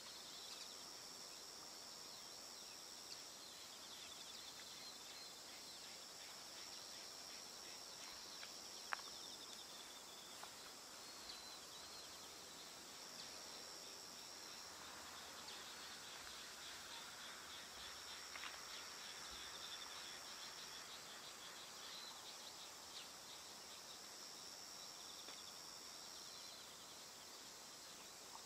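Faint outdoor ambience of insects trilling in the fields: high-pitched steady trills that start and stop every few seconds, over smaller repeated chirps. A single sharp click about nine seconds in.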